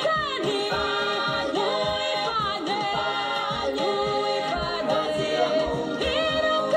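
Music of several voices singing together, with notes held and sliding between pitches, running without a break.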